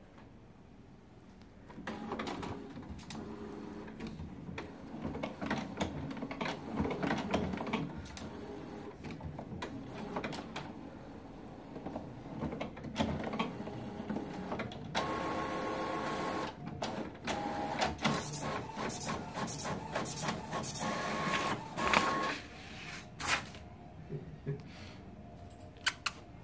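Home all-in-one printer running, with whirring, clicking and short steady machine tones, starting about two seconds in and dying away about twenty-three seconds in.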